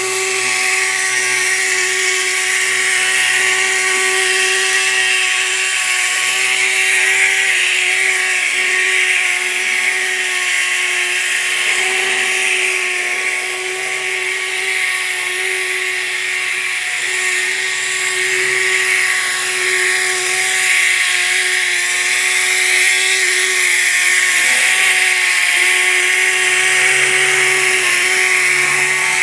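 Electric motor and gear train of a 1960s Lindberg HO switcher locomotive running hard, a steady whine with a harsh, drill-like grinding noise over it: the motor's bearings are worn out.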